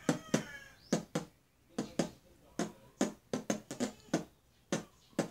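A boy imitating a kick drum with his mouth: a string of about fifteen short, sharp pops at an uneven pace.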